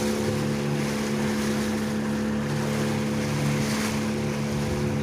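Boat engine running at a steady speed, a constant drone, with wind and water rushing past.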